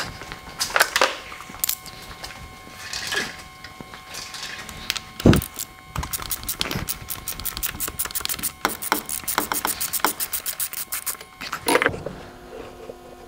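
Ratchet wrench with an oil-filter socket working the oil filter housing cap loose: knocks of the tool going on and being handled, one loud knock about five seconds in, then rapid ratchet clicking from about six seconds in until near the end.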